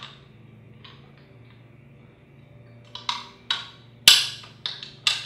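Sharp clicks and taps of a plastic fish-finder mount and its small metal screws and nut being handled and fitted by hand. There is one click at the start and another just before a second in, then a quick cluster of about seven in the second half, the loudest about four seconds in.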